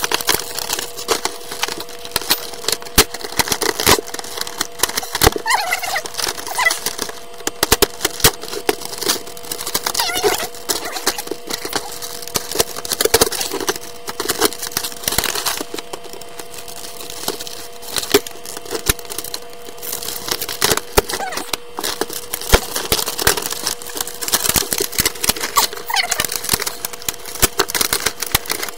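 Hard plastic clamshell blister packaging being cut and pried open with a knife, played in fast motion: a dense run of crackles, snaps and clicks over a steady hum.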